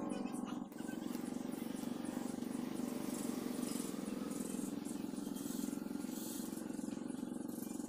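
A steady low drone, with the soft scratch of a coloured pencil being worked across paper.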